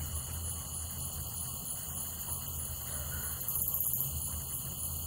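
Pause in speech: only a steady low hum with faint hiss, the background noise of the recording and its sound system.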